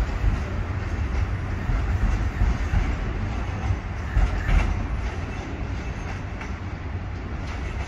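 c2c Class 357 Electrostar electric multiple unit departing, running over the rails with a steady rumble and a few knocks around four seconds in, fading as it draws away.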